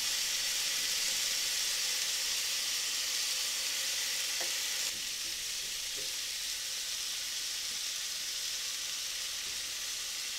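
Sausages, bacon and mushrooms in butter sizzling steadily in a rectangular frying pan on a gas stove, with an occasional light tap of tongs turning the mushrooms.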